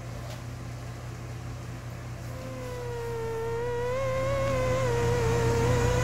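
Mosquito buzzing sound effect played from a phone's speaker: a thin, wavering whine that starts a little over two seconds in and grows louder.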